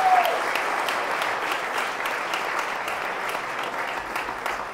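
Crowd applause: many hands clapping together, gradually fading.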